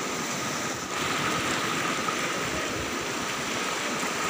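Fast-flowing floodwater rushing and churning past a concrete embankment: a steady rushing noise, with a brief dip about a second in.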